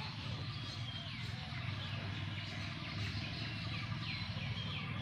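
Small birds chirping repeatedly, each call a short high note sweeping downward, over a steady low rumble.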